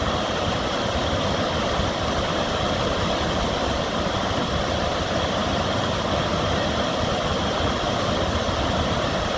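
Water pouring over a river weir: a steady, even rushing.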